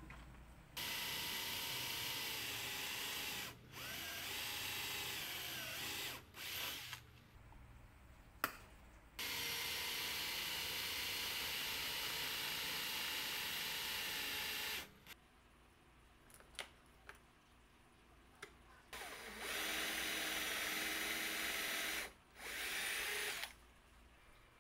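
Electric drill running in about six bursts of one to five seconds each, with the longest in the middle, boring through a clamped drilling jig into plywood. A single sharp click comes between bursts.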